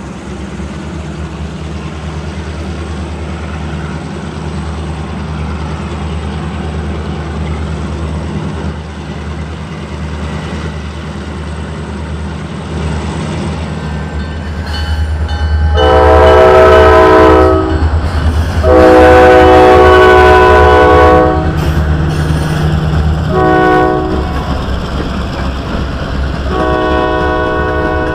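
Huron & Eastern diesel freight locomotive approaching with a steady low engine rumble, then sounding its air horn, several notes at once, in the grade-crossing pattern: two long blasts, a short one, and a long one that begins near the end.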